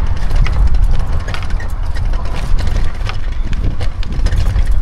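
Wind buffeting the microphone in a heavy, gusting rumble, over irregular footsteps on a dry dirt and grass path.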